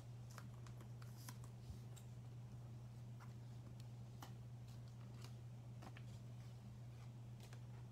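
Near silence: a steady low hum with a few faint, scattered clicks.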